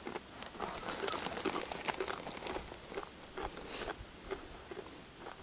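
Faint, irregular clicking and rustling of a spinning rod and reel being handled during a slow lure retrieve, with no steady rhythm.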